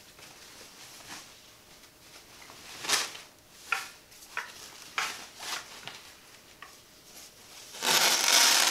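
Clear plastic packing bag rustling and crinkling as it is handled: a few short crackles, then a loud, continuous crinkle near the end as the sheet is lifted off.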